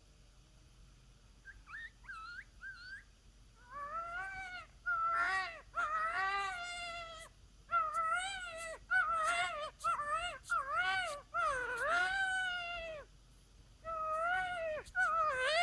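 Coyote yips and yelping howls blown on a triple-reed diaphragm howler call. Faint high yips come in about a second and a half in, then a run of louder yelps that rise and fall in pitch, broken by a short pause near the end.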